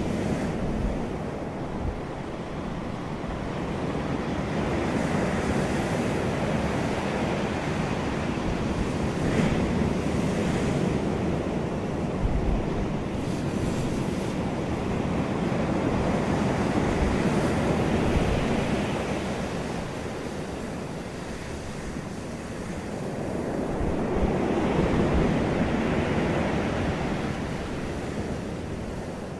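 Ocean surf breaking on a beach, the wash swelling and easing every several seconds, with wind buffeting the microphone.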